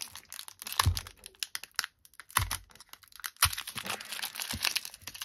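Foil trading-card pack wrapper crinkling and crackling as fingers work at its sealed end to tear it open, in irregular bursts with a short pause near the middle and a few soft bumps of handling.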